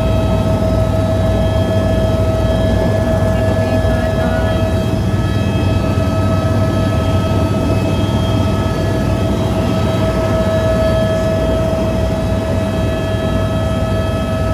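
Helicopter in flight heard from inside the cabin: a loud, steady drone of rotor and engine with a constant high whine over it.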